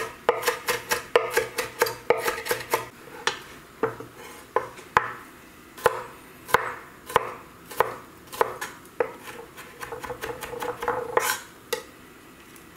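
Chef's knife chopping onion and then garlic on a wooden cutting board: quick knife taps at about four or five a second at first, then slower, spaced knocks as the garlic is minced, dying away near the end.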